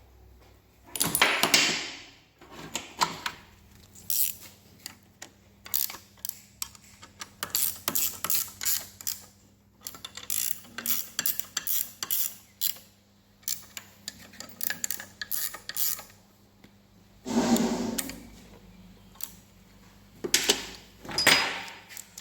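Ratcheting torque wrench clicking in quick runs as bolts are tightened to 70 Nm, with clinks of metal tools. Two louder clattering bursts come near the end.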